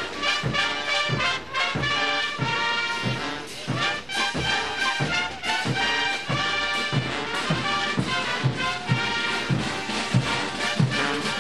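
Marching brass band playing: trumpets and trombones sounding held chords over a steady bass-drum beat, about two beats a second.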